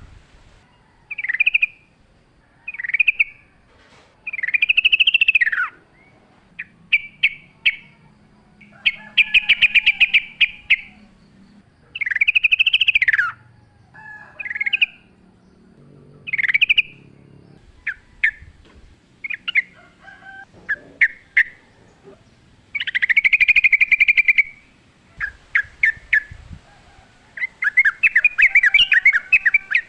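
Yellow-vented bulbul (trucukan) singing: a run of short phrases every second or two. Some are arching, whistled sweeps about a second long; others are quick rattling chatters.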